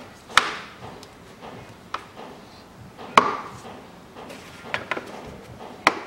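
Spring latches on a Hyundai ix35's plastic air filter housing lid being snapped shut by hand: a few sharp clicks spaced a second or more apart, the loudest about three seconds in.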